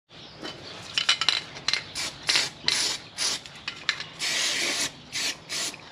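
Aerosol rattle can of truck bed liner spraying in a string of short hissing bursts, with a few clicks about a second in, and longer sprays of nearly a second near the end.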